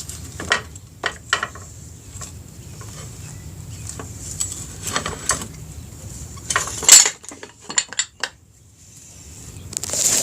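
Metal clinks and knocks of a Suzuki Hayabusa's rear wheel parts (axle, spacers, chain) being handled as the wheel is worked free of the swingarm. There are scattered sharp clicks, with the loudest clank about seven seconds in.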